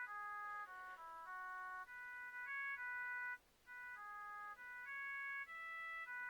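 Preloaded ringtone of a Hykker Classic mobile phone playing: a bright electronic melody of clean tones sounding in chords, with a short break about halfway through.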